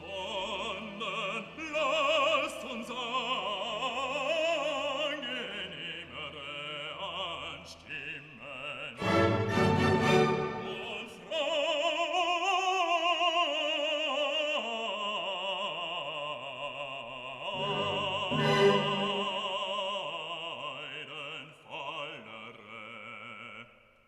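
Operatic singing with wide vibrato over orchestral accompaniment, a classical music track.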